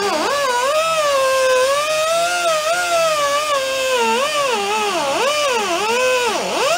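Pneumatic cut-off tool (whiz wheel) cutting off old steel hardware. A high whine whose pitch keeps sagging and recovering as the abrasive wheel bites into the metal, with a deep drop near the end.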